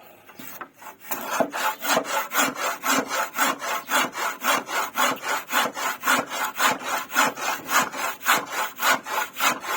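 Handsaw cutting through wood with quick, even back-and-forth strokes, about three a second, starting up again about a second in after a brief pause.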